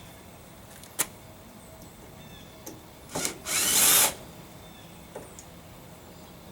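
A power drill runs in one short burst of a little over half a second, about three and a half seconds in, driving a screw. A single sharp click comes about a second in.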